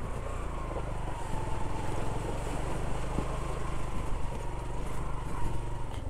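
Motorcycle engine running steadily while riding, with a faint steady high whine over it.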